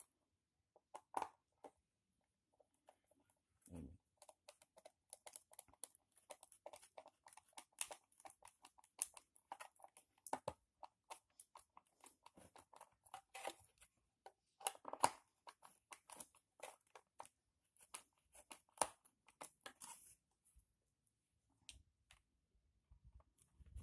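Screwdriver driving a small screw through a plastic dustpan's handle socket into a broom handle: a faint, rapid, irregular run of short clicks and scratchy creaks from about four seconds in to about twenty seconds in.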